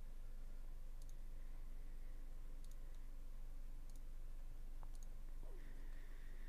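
Four faint, sharp clicks spread over several seconds, over a steady low electrical hum.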